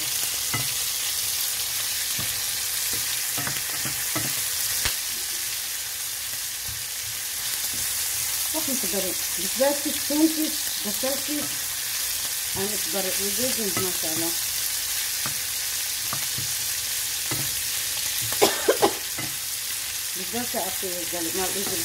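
Meat and onion rings sizzling steadily in a hot pan while being stirred with a wooden spatula. A few sharp knocks stand out, twice about ten seconds in and twice more near the end.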